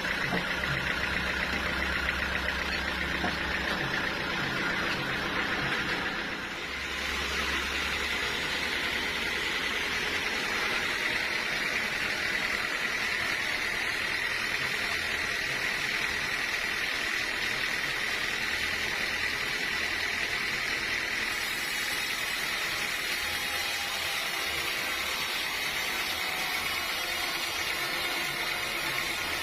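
Sawmill machinery running steadily, a continuous mechanical noise with a high whine, dipping briefly about six seconds in.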